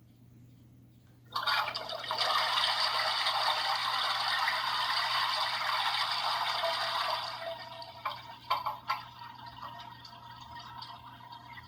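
Toilet-flush sound effect played from a novelty prank sound machine: a rushing, gurgling water sound that starts suddenly about a second in and dies away after about six seconds, followed by a few sharp clicks.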